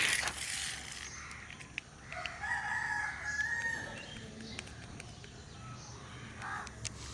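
A rooster crowing once, starting a little over two seconds in and lasting about a second and a half. It follows a brief clatter at the very start.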